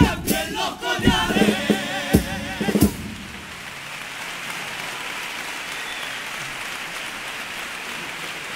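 Chirigota chorus singing in unison over guitar and drum hits, ending the couplet with a final accented beat about three seconds in. The theatre audience then applauds steadily.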